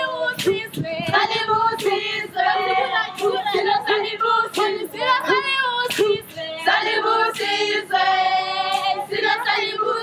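A group of Zulu girls and women singing a traditional song together, several voices in one melody, with sharp regular beats keeping time under the singing.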